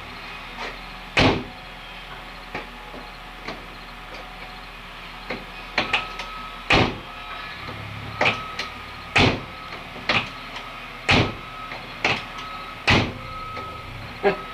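Sharp metal knocks on the door and hinge of a 1969 VW Baja Bug as the door is worked into position: one knock about a second in, then about eight in a row roughly a second apart.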